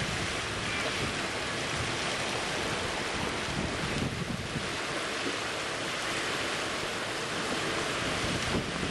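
Wind buffeting the microphone over the wash of waves on open water: a steady rushing noise without let-up.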